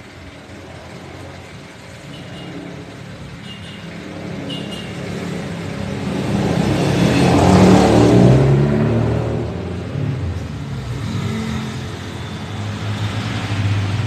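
A motor vehicle passing close by, its engine sound building steadily to a peak a little past halfway and then easing, with engine sound still going near the end.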